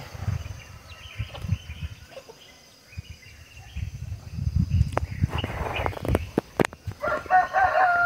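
A rooster crows near the end: one long, held call. Before it there is quiet outdoor rustling with a few sharp clicks.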